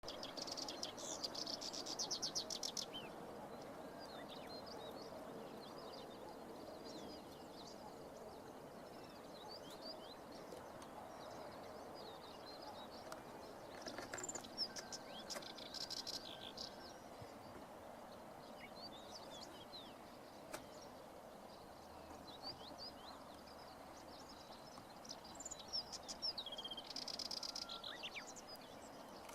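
Black-browed reed warbler singing: three fast, buzzy, rattling song phrases, near the start, about halfway and near the end, with short high notes scattered between them over a steady low background noise.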